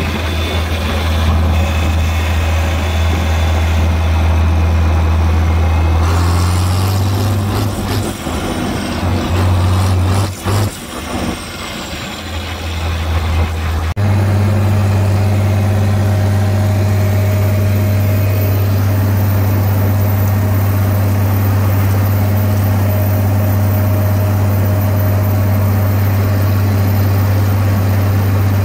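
Farm tractor engine running at a steady speed on the road, its pitch and level shifting for several seconds in the middle. About halfway in the sound changes abruptly to the tractor running steadily under load, driving a PTO-driven batwing rotary cutter through grass.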